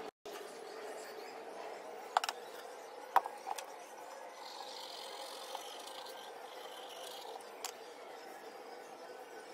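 Light handling sounds as a tube of glue is worked over a wooden subwoofer grill frame: a few sharp clicks and taps about two to three seconds in, then a faint hiss for about three seconds as a bead of glue is squeezed out along one edge of the frame, over a steady low room hum.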